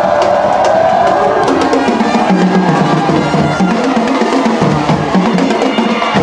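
Music with drums and percussion, with a line of repeated low bass notes coming in about two seconds in.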